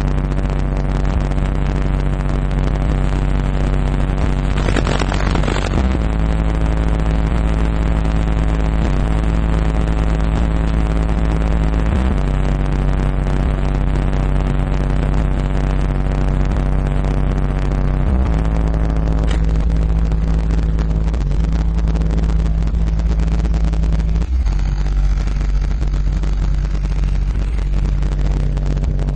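RE Audio XXX 15-inch subwoofer in a ported box tuned to 32 Hz, playing loud, sustained deep bass notes with a stack of overtones, the notes breaking off briefly every few seconds. A short rush of noise comes about five seconds in.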